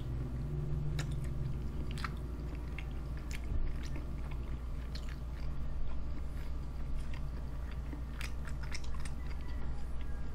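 Close-miked chewing of cheese-covered fried chicken and rice, with irregular crisp clicks and crunches, over a steady low hum.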